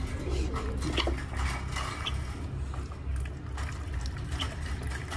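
Water being poured from a plastic bottle into the drinking bowl of a birdcage, a splashing trickle with a few light clicks, over a steady low rumble.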